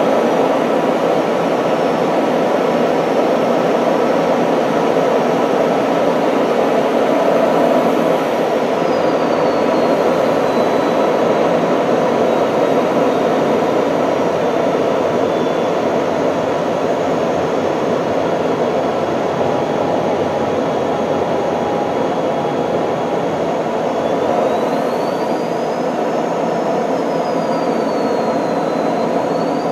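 Steady jet engine and airflow noise inside an F-16 fighter's cockpit, with a faint high whine that slides down in pitch about eight seconds in and rises and falls again near the end.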